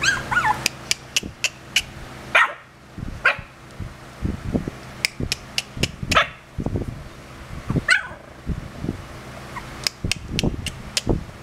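Young chow chow puppies, about 25 days old, giving short high yips and whimpers now and then, among many sharp clicks and soft low bumps.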